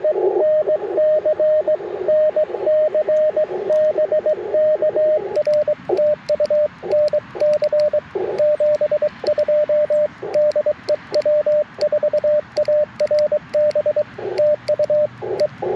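Morse code (CW) from an Icom IC-705 transceiver: a steady tone near 600 Hz keyed on and off in dots and dashes. For the first five seconds it is a received signal in a narrow band of receiver hiss. After that the hiss drops out between elements, and the clean sidetone is sent with the light clicking of the iambic paddles.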